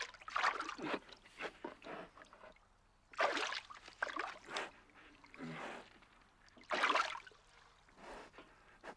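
Water splashing and sloshing in irregular bursts as a brown bear wades and noses about in a river's shallows.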